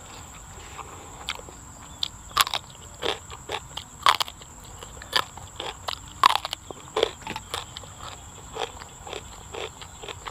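Close-up eating: crisp bites into a fresh raw vegetable and wet chewing of raw beef laab. The crunches and mouth clicks come irregularly, the loudest about two and a half, four and six seconds in.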